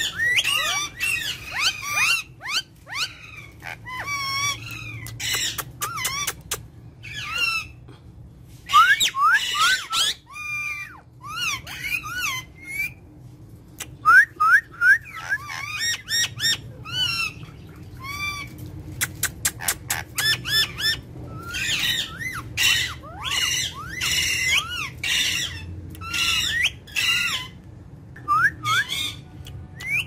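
Several Alexandrine parakeets calling to one another: a near-constant run of short, shrill squawks and screeches, mixed with quick rising and falling whistled notes.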